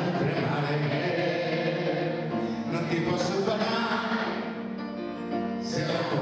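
A male singer singing into a microphone to his own grand piano accompaniment, with a crowd of teenagers singing along.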